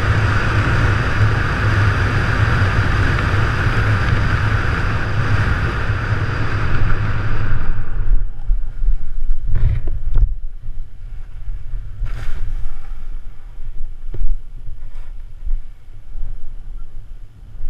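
Air rushing over the skydiver's camera microphone under a parachute canopy: steady wind noise that stops sharply at touchdown about halfway through. Afterwards, low wind buffeting on the microphone and a few brief scuffs.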